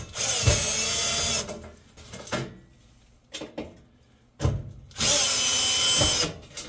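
Cordless power drill/driver backing out two screws from an oven's burner tray, one short run of the motor whine near the start and another about five seconds in, each about a second long. Knocks sound as the bit is seated.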